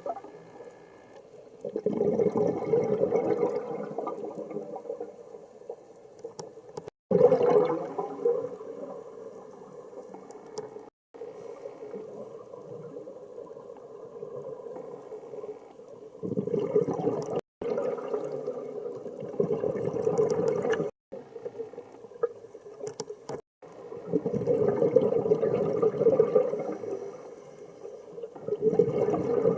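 Underwater recording of a scuba diver's exhaled bubbles gurgling in surges every few seconds, with quieter water between.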